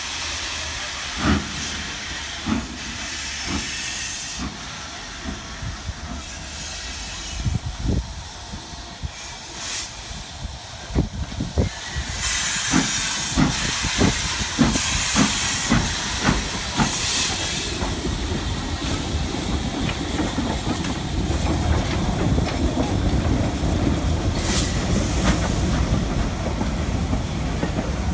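Steam locomotive getting under way with steam hissing and exhaust beats that come quicker and quicker over the first half. Then the steady rumble of the train's coaches rolling past.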